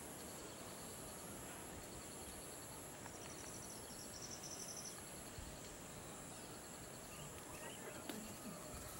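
Faint, steady chorus of insects, shrill and high-pitched, with a regular pulsing trill beneath it. A brief beaded chirping trill comes in about three seconds in and stops near the middle.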